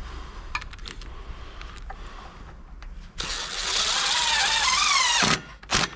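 Cordless drill-driver driving a screw: the motor runs for about two seconds with a whine that wavers in pitch as the screw bites, then gives one short second burst near the end.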